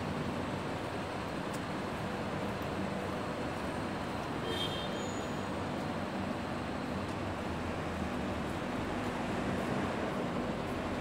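Steady urban background noise: an even traffic-like hiss with a low hum underneath. A brief high-pitched chirp sounds once about four and a half seconds in.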